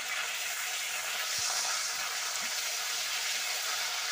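Bay leaves and cumin seeds sizzling in hot oil in an aluminium kadai, a steady frying hiss, with a metal spatula stirring and knocking against the pan a few times.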